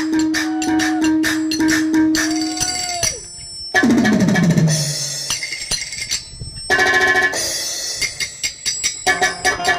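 Music with drums and percussion that changes abruptly from section to section, with a brief drop a little after three seconds and a falling pitch glide about four seconds in.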